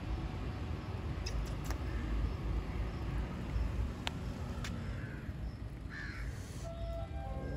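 Steady low outdoor rumble with a few short, harsh animal calls, the kind a crow gives, scattered through it and some light clicks. Near the end a few short steady notes begin, the start of background music.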